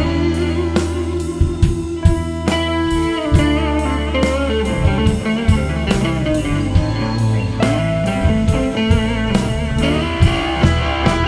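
Live blues band playing an instrumental passage: electric guitar with sliding, bent notes over bass guitar and a drum kit keeping a steady beat.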